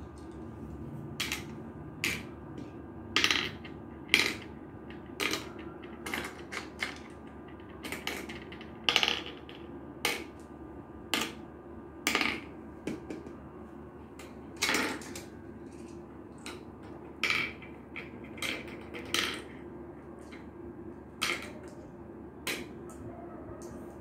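Glass marbles dropped one at a time into the pits of a wooden Gurpale (mancala) board as a player sows them, each landing with a sharp click or clink against the wood and the other marbles, at an uneven pace of about one a second.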